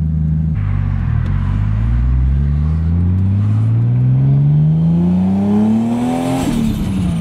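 Twin-turbo 2JZ-GTE inline-six of a 700 hp 1998 Toyota Supra pulling hard in gear, heard from inside the cabin: its pitch rises steadily for about five seconds, then drops sharply as the throttle is lifted about six seconds in.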